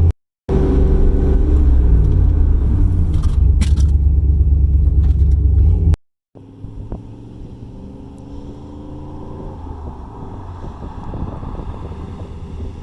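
A 1997 Dodge Dakota pickup's engine running on the road, loud with a low rumble and shifting pitch. After a brief cut about six seconds in it is heard much quieter, its pitch falling as the truck slows, then climbing a little near the end.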